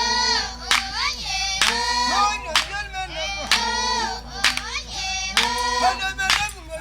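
Voices singing a song together over hand claps that fall about once a second.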